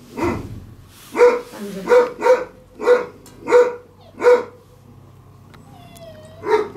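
A small dog barking, about eight sharp barks coming roughly every half second to second, with a short pause before more near the end.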